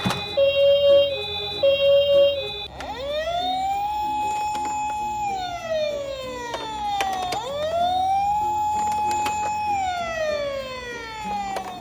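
An ambulance-style wailing siren that glides up, holds and slides back down, twice over. It is preceded by a few short repeated beeping tones.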